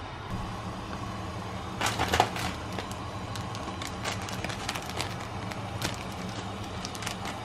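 Crinkling of a foil ramen soup-powder sachet about two seconds in, then a pot of water on the stove giving off scattered small ticks and pops as it comes to the boil, over a steady low hum.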